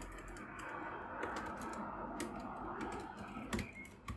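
Computer keyboard typing in irregular, scattered keystrokes, as a web search is typed in.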